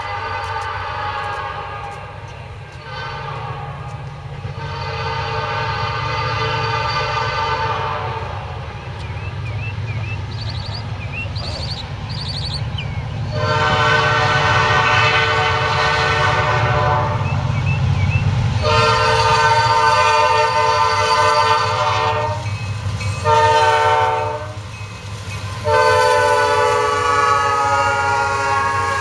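Diesel freight locomotives' multi-chime air horn sounding a chord in a series of long blasts, a short blast a little before the end, then another long blast, the sequence used when approaching a grade crossing. Under the horn the locomotives' diesel engines rumble steadily, growing louder as the train comes closer and passes.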